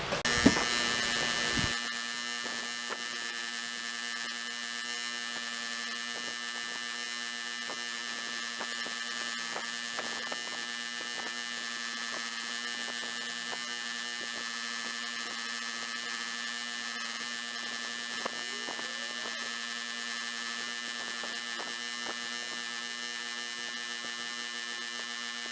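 Power wire brush wheel running at a steady speed with a constant motor hum, with faint scattered ticks as the wires scrub surface rust off a steel screwdriver shaft.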